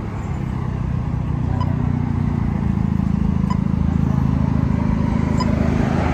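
Road traffic: vehicle engines running close by as a steady low rumble. A faint short tick repeats about every two seconds.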